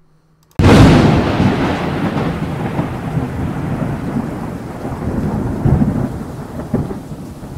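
Thunderclap that breaks suddenly about half a second in and rolls on as a long rumble over steady rain, slowly fading.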